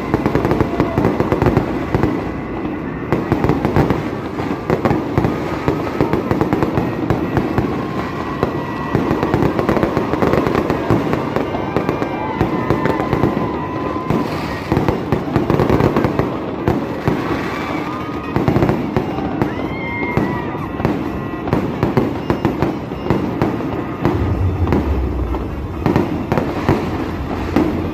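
Fireworks display bursting and crackling continuously, a dense run of overlapping bangs and crackles without a break.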